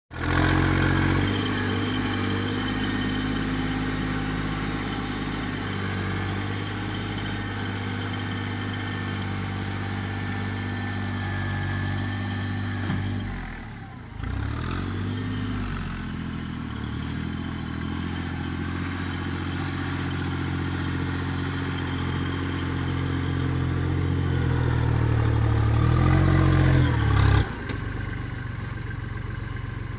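Kubota L39 tractor-loader-backhoe's four-cylinder diesel engine running under load as the front bucket works dirt. Its pitch and level shift with the work, dipping briefly about halfway. It grows louder near the end and drops off suddenly just before the end.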